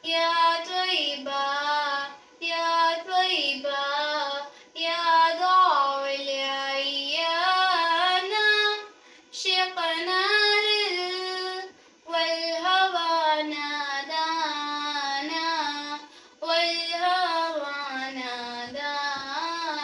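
A girl reciting a naat solo with no instruments: one young voice singing melodic phrases of a few seconds each, with short breaths between them.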